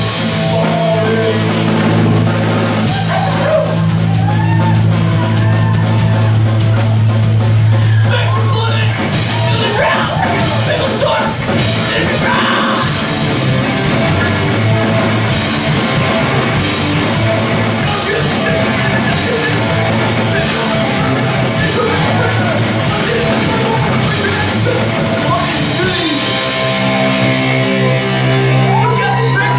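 Hardcore punk band playing live and loud: distorted electric guitar, bass guitar and drum kit, with a vocalist singing over them. Long low chords are held for the first several seconds and again near the end.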